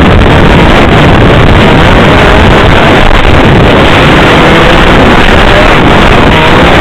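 Snowmobile engine running steadily as the sled rides along a snowy trail, very loud on the microphone, with wind buffeting it.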